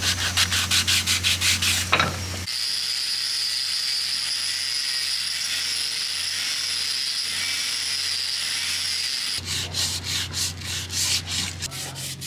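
Hand sanding on the wooden rudder: quick, even back-and-forth strokes, about five a second. A little over two seconds in they give way to a steady machine noise with a high whine, and the strokes return about nine seconds in.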